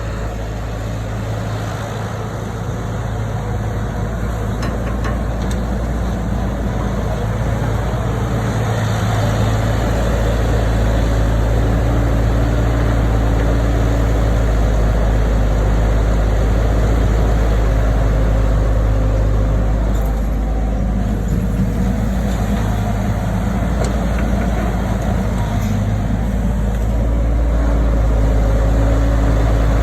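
Kubota machine's diesel engine running steadily, a low drone that grows somewhat louder over the first ten seconds or so.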